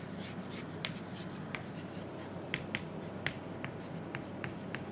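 Chalk writing on a blackboard: short, sharp, irregular taps and scratches as the letters are formed, over a steady low room hum.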